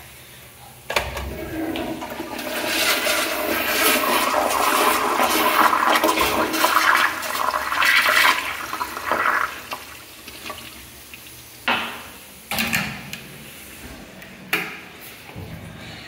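Commercial Kohler toilet with a flushometer valve flushing: a click as the valve is tripped, then a loud rush of water through the bowl for about eight seconds that fades away. A few knocks follow near the end.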